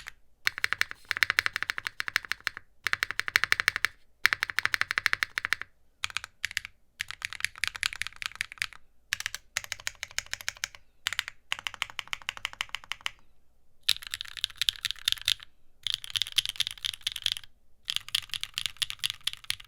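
Fast typing on a Neo60 Cu brass-case 60% mechanical keyboard with Gateron Sage linear switches, an aluminium plate and no foam: rapid keystrokes in bursts of a second or two with brief pauses between them.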